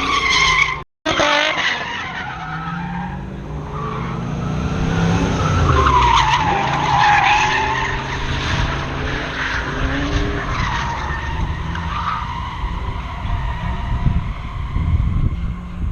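Drift Mustang's engine revving up and down while its rear tires squeal in a slide, the squeal loudest midway. The sound cuts out completely for a moment about a second in.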